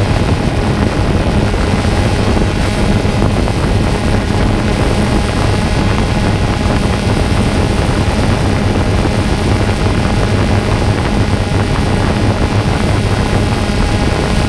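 Multirotor drone's motors and propellers humming steadily in flight, a continuous low buzz that holds an even pitch.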